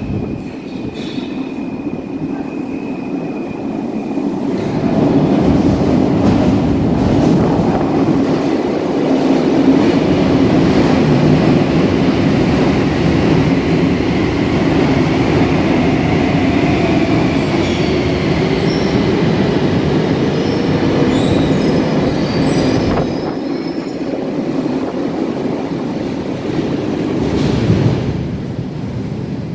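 Metro train running along an underground station platform: a loud rumble of wheels on rail that swells about five seconds in, with a whine from the motors that changes pitch and some wheel squeal, then eases off near the end.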